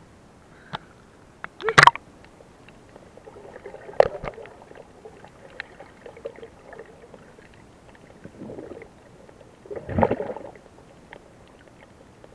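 Water sounds from a swimmer diving under, heard on a camera partly underwater: a sudden loud splashing burst about two seconds in, a sharp knock about four seconds in, and scattered muffled gurgles, the longest and loudest about ten seconds in.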